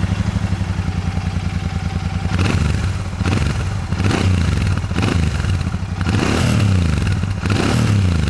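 Royal Enfield Shotgun 650's air-cooled 650 cc parallel-twin on its stock exhaust, idling just after start-up with a steady pulse, then blipped about six times from about two seconds in, each rev rising and dropping back to idle. The note is round, full and dense, not too loud.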